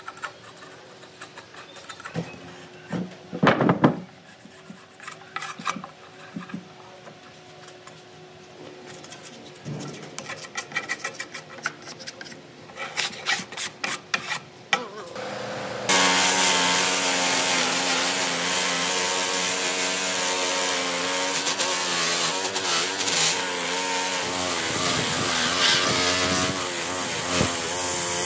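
Irregular hand-scraping strokes across a weathered wood slab. About halfway through, an electric motor driving a rotary brush wheel starts abruptly and runs steadily against the wood surface.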